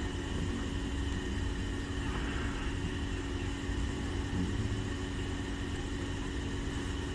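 Steady mechanical hum and low rumble with a faint constant tone running through it, unchanging throughout.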